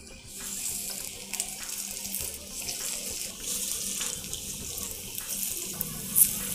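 Batter sizzling as spoonfuls drop into hot oil in the wells of a paniyaram pan: a steady, high hiss, with a few light clicks of the spoon on the pan.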